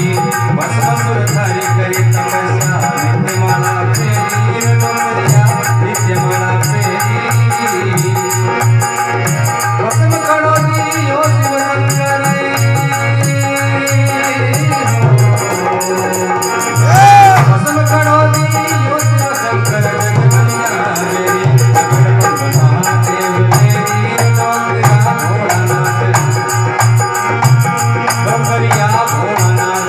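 Rajasthani (Marwari) folk music: a steady rhythmic drum pulse with shaken percussion and a melody over it. A short sharp accent stands out about two-thirds of the way through.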